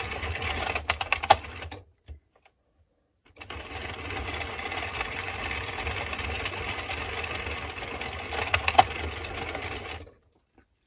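Addi Express Kingsize circular knitting machine being hand-cranked, its needles clattering steadily around the ring as it knits a thick acrylic yarn smoothly. It stops about two seconds in, starts again about a second and a half later, and stops near the end, with a few sharper clicks along the way.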